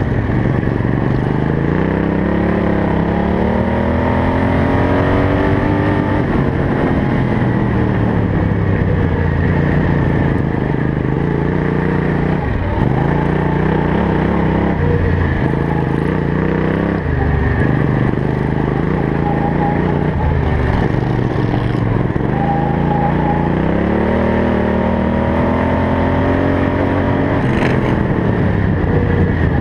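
Racing ride-on lawn mower's engine heard close up from on board, running hard around a dirt track: its pitch climbs as the mower accelerates and drops back as it slows, several times over.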